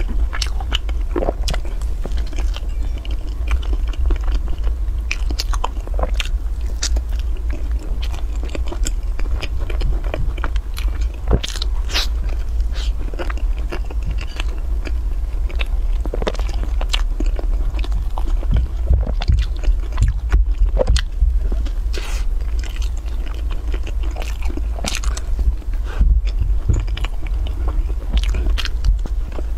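Close-miked chewing and biting on a crumb-coated fried snack: irregular crunchy clicks and mouth sounds, over a steady low hum.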